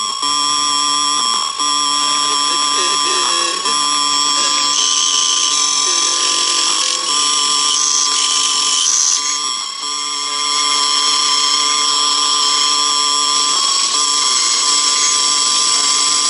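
Synthesized background music: sustained high droning tones held steady over low chords that shift every few seconds.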